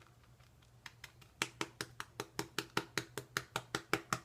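Boar-bristle shaving brush whipping shaving soap into lather in a glass Pyrex bowl, the brush knocking against the bowl's sides in a fast, even rhythm of about six clicks a second, starting about a second in.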